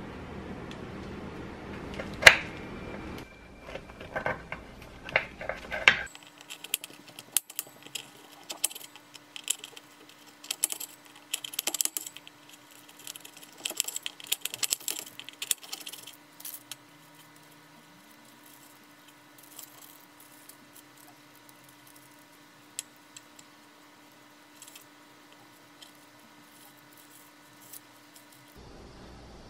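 Serrated bread knife sawing through a once-baked chocolate biscotti log on parchment: a dense run of crisp scraping strokes, then sparse light taps and scrapes as the slices are moved apart. Before that, a sharp clack and a few knocks.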